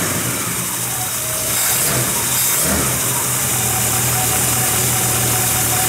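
Corvette small-block V8 idling steadily with its electric choke working; the choke is opening as the engine warms.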